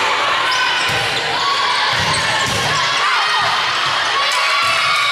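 Sneakers squeaking on the court floor as volleyball players move during a rally, with a couple of sharp hits of the ball.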